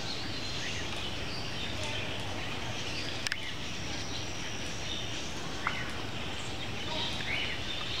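Steady outdoor background noise with a few faint, short bird chirps scattered through it and a brief click about three seconds in.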